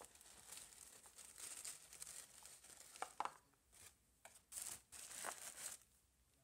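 Tissue paper crinkling and rustling as it is handled. It is continuous for about the first three seconds, then comes as several short separate rustles, and dies away near the end.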